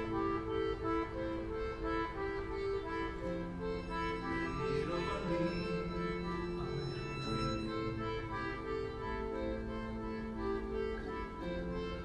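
Instrumental passage of live indie-folk music: long held chords that shift every few seconds, with no singing.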